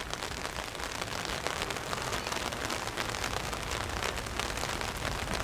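Steady rain, a dense patter of many small drops striking close to the microphone.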